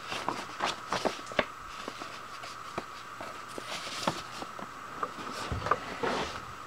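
Paper instruction sheets rustling and crackling as they are handled and their pages turned, in irregular short crackles, over a faint steady hum.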